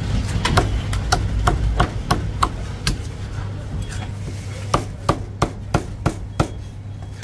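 Chinese cleaver chopping crispy-skinned roast pork belly on a thick round wooden chopping block: a run of sharp chops about three a second, a pause of about a second and a half in the middle, then a second run. A steady low hum sits underneath.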